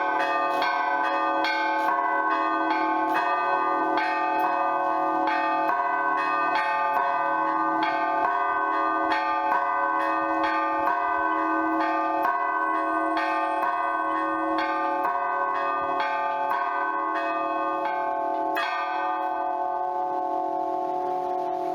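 Orthodox church bell ringing (zvon) on eight old bells, cast by the Lavrov, Olovyanishnikov and Shuvalov foundries: the big bell, four middle bells and three small bells struck in a steady rhythmic peal of about two strokes a second. A last stroke comes about nineteen seconds in, and the bells are left ringing out.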